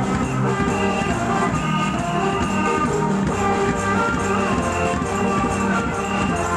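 Taiwanese funeral procession band playing a melody over a steady beat.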